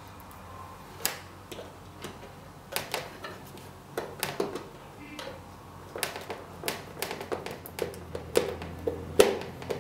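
Irregular clicks and taps of a small plastic drop-tank cradle being fitted and screwed onto the underside of an RC model plane with a small screwdriver. The clicks come sparsely at first and more often in the second half.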